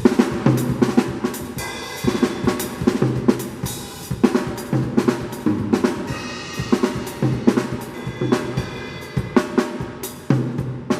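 Drum kit played in a fast sebene groove with fills: rapid snare strokes over bass drum and hi-hat, with a cymbal crash at the start and another near the end.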